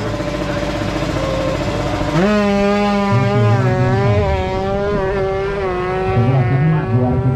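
A motorcycle engine runs off-camera, revs up sharply about two seconds in and is held at a steady high rev, its pitch wavering slightly.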